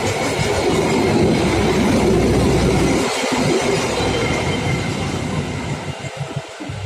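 Express passenger train passing at speed, its wheels clattering over the rails. The noise dies away near the end as the last coaches go by.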